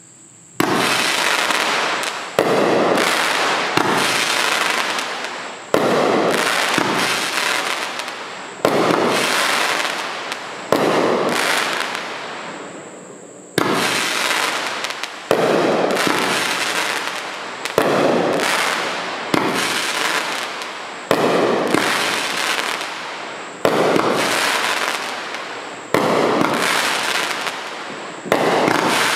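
PyroShine Crackling Mystics 13-shot, 200-gram firework cake firing. A shot goes off every one to three seconds, and each bursts into a loud, dense crackle that fades before the next.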